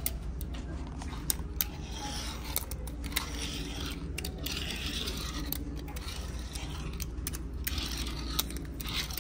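Fingerboard rolling and scraping around a ceramic sink basin, a hiss that swells and fades as it is pushed back and forth, with scattered sharp clicks as the board and trucks tap the porcelain.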